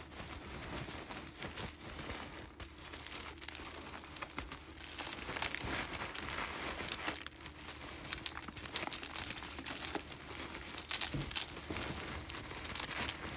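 Cloth dust bag of a Henry vacuum cleaner being handled and scraped out, an irregular rustling and crinkling with short scratchy scrapes as packed dirt is dug out of it.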